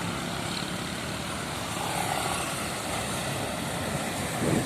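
Medium-size tour bus driving past, with steady engine and road noise.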